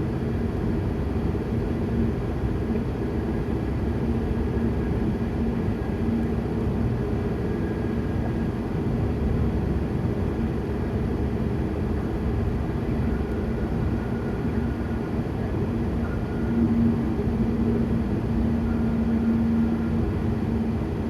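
Road and engine noise inside a moving car's cabin: a steady low rumble with a held hum that grows a little stronger in the last few seconds.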